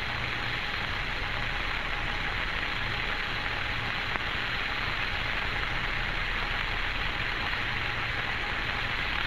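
Steady hiss with a faint low hum on the Friendship 7 capsule's voice communications recording, the channel open but with no voices during a lull in the radio chatter.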